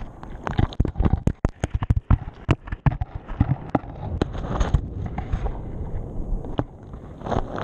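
GoPro camera tumbling and dragging along the sea bed underwater: a rapid run of sharp clicks and knocks as it hits sand and stones, over a low rumble of surging water. The knocks come thick for about three seconds, then thin out.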